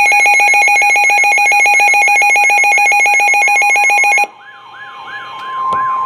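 Midland weather alert radio sounding its warning alarm: a loud, rapid electronic beeping over a repeating warbling sweep, which cuts off suddenly about four seconds in. The warbling carries on, growing louder, along with a steady single tone, the NOAA Weather Radio warning alert tone that comes before a new warning.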